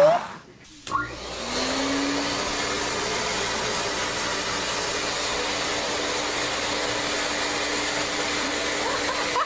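Steady rushing noise of an electric appliance running, starting about a second in after a brief drop, with a faint low hum underneath.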